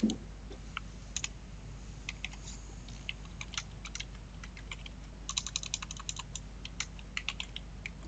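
Computer keyboard typing: irregular single keystrokes, with a quick run of keys about five seconds in, over a faint steady low hum.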